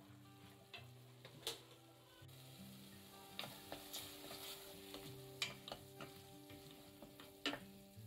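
Chopped tomatoes and shallots softly sizzling as they sauté in a stainless steel pot, stirred with a wooden spoon that scrapes and clicks against the pot several times, most often in the second half. Quiet background music runs underneath.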